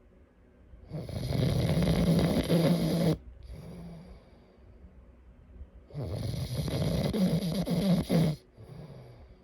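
A person snoring in sleep: two loud snores about five seconds apart, each lasting about two seconds and followed by a short, softer breath.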